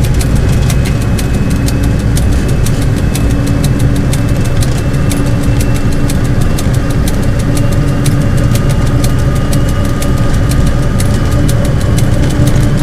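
Vehicle engine idling steadily, with a quick, uneven run of sharp ticks over it and a faint tone that creeps slowly upward.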